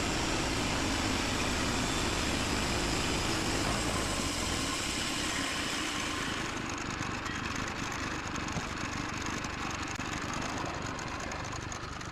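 Gas-engine band sawmill running with its blade cutting through a cherry log, a thin truing cut off the top. About halfway through, the high cutting hiss drops away, as the blade clears the log, and the engine runs on.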